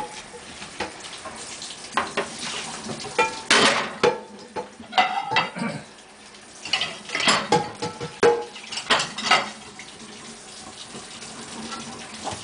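Dishes and a metal baking pan clattering and clinking as they are loaded into the wire racks of a dishwasher, in irregular knocks with short ringing.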